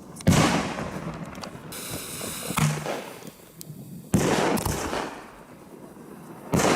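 Firecrackers or salute fireworks exploding: four sharp bangs, each followed by a fading echoing rumble. The second bang is smaller and comes after a short high hiss.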